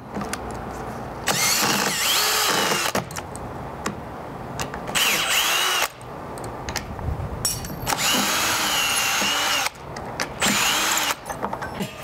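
Makita brushless cordless drill/driver backing the screws out of an old door strike plate in four short runs, the motor's pitch rising and falling within each run.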